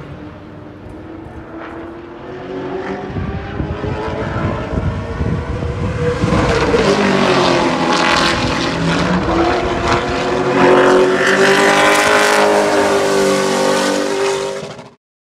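Late model stock car's engine running at speed on the track. It grows louder over the first several seconds as the car comes nearer, holds loud with small rises and falls in pitch, then cuts off abruptly near the end.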